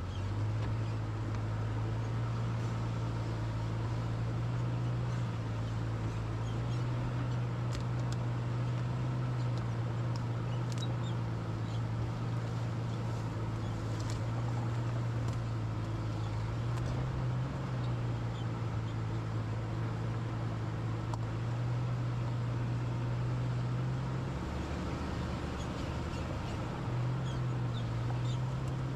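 1999 Jeep Cherokee XJ engine running steadily as it drives. Its low hum steps up and down in pitch a few times, with faint scattered ticks and squeaks over it.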